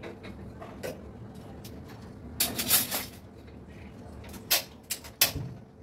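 Metal cookware clattering on a gas stove as pots are set on the burners: a burst of knocks and scrapes about halfway through, then three separate sharp clicks near the end.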